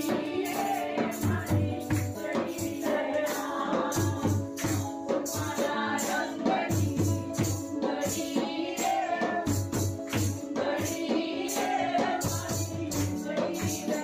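Devotional dhun music: singing over a steady drum beat, with jingling tambourine-like percussion on the rhythm.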